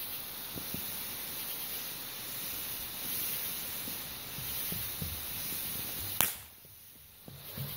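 Ground fountain firework spraying sparks with a steady hiss and a few faint pops. A sharp crack about six seconds in, after which the hiss cuts off.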